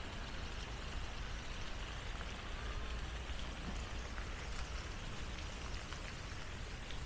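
Garden pond fountain spraying water that falls back and splashes into the pond: a steady splashing over a low rumble.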